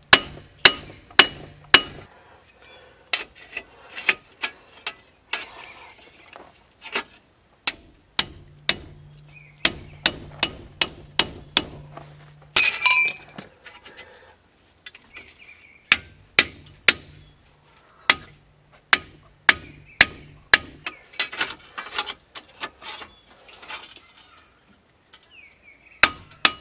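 Hammer tapping a chisel against a seized front wheel bearing hub: sharp metal-on-metal strikes in runs of several, about two to three a second, with short pauses, working around the bearing to knock it loose from the knuckle.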